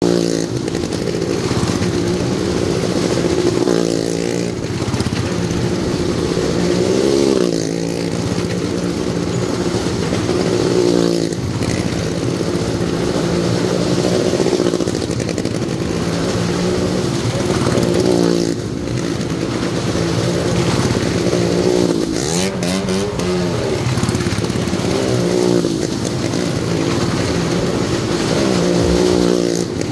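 Motorcycles riding laps around the vertical wooden wall of a well-of-death, engines running hard. The engine note swells and rises and falls in pitch each time a rider sweeps past, about every three to four seconds.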